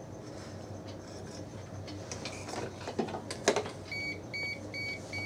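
A couple of sharp knocks, then a DM-86 digital multimeter giving a run of short, evenly spaced beeps near the end. The beeps are its auto power-off warning, sounded when the meter is left on.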